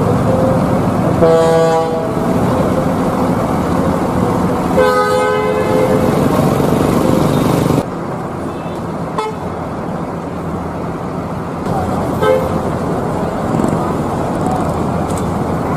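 Coach bus engines running as buses move through a terminal, with two horn blasts, about a second in and about five seconds in; the overall sound drops a little just before halfway.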